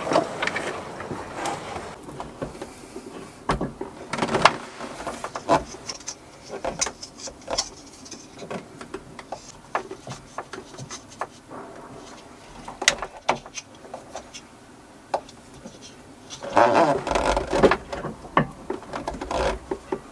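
Scattered clicks, knocks and rustling of hands working a brass hose tail and T-piece fitting on a boat's water-system plumbing, with PTFE tape handled; a busier burst of handling noise near the end.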